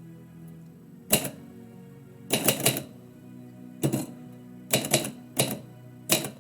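Typewriter keys struck in irregular bursts, single strokes and quick runs of two or three, about ten in all, over soft background music with held low tones.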